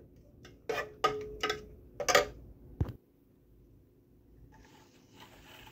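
Metal ladle knocking against the side of a pressure-cooker pot while stirring thick rajma, about five short knocks in the first three seconds. Then it goes almost quiet, with only a faint hiss.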